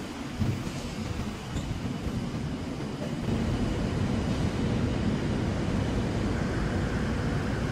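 Steady low rumble of urban background noise, growing louder about three seconds in.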